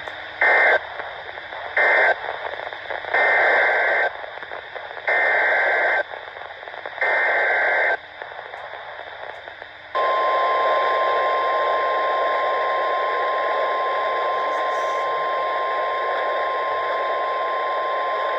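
NOAA Weather Radio EAS alert signalling over radio hiss. First come the last two short SAME data bursts that close the previous warning, then three longer SAME header bursts for the next warning. About ten seconds in, the steady 1050 Hz warning alarm tone starts and holds without a break.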